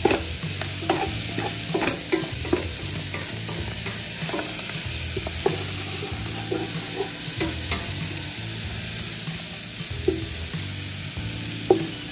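Ground beef with freshly added chopped onions, carrots and celery frying in butter in a large pan, sizzling steadily while a wooden spoon stirs it and knocks against the pan again and again.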